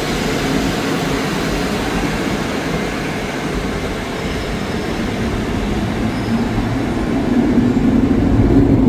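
Departing train of PKP Intercity passenger coaches rolling past, a steady rumble of wheels on the rails, with a low hum growing louder near the end as the last coach goes by.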